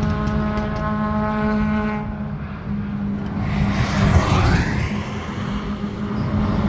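Racing cars on a circuit: a small hatchback drives past along the straight about four seconds in, its engine note climbing as it accelerates by, over the steady drone of other cars' engines running at held revs.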